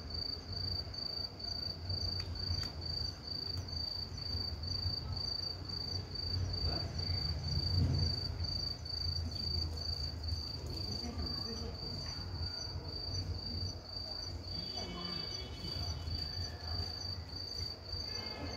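Cricket chirping steadily, about two high chirps a second, over a low background rumble.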